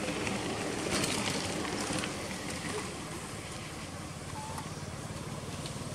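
Small motorbike engine idling: a steady, fast, low putter.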